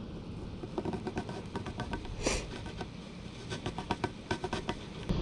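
A sunfish flopping in the hand, its tail slapping with many short, irregular smacks and clicks.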